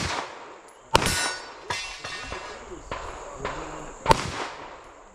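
Handgun shots at irregular intervals: one right at the start, another about a second later with a fainter crack soon after, and a third about four seconds in. Each shot trails off in a brief echo.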